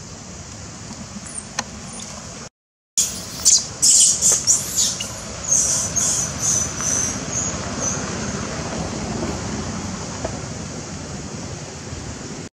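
A quick cluster of loud, high-pitched animal squeaks about three seconds in, after a brief cut to silence, then a thinner run of high chirps that fades out by about eight seconds, over a steady outdoor background hiss.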